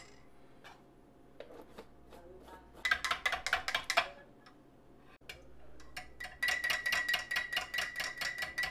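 Metal teaspoon stirring tea in a ceramic mug, clinking against its sides: a short burst of rapid clinks about three seconds in, then fast, even clinking from past the middle on, with the mug ringing a steady tone.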